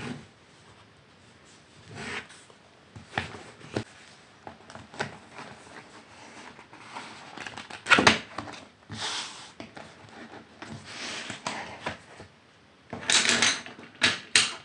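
Hardcover sketchbooks being handled on a wooden table: scattered knocks and taps as the pads are moved and set down, with rustling and sliding. The loudest knock comes about eight seconds in, and a longer stretch of rustling comes near the end.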